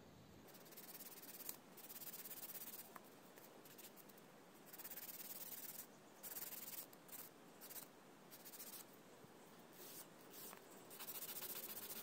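Faint rasping of a 100/180 nail file's coarse 100-grit side stroking across a cured acrygel nail, in short bouts of strokes, as the nail is shaped.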